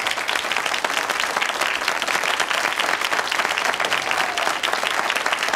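Studio audience applauding, a dense, steady patter of many hands clapping.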